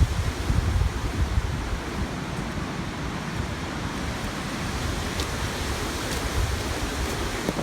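Hurricane wind gusting over the microphone: a steady rushing noise with choppy low rumbling buffets.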